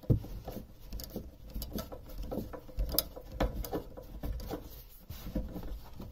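Screwdriver tightening the clamp that holds aluminium flexible ducting onto a boiler flue outlet: a run of small irregular clicks, scrapes and knocks, with a sharper knock at the start.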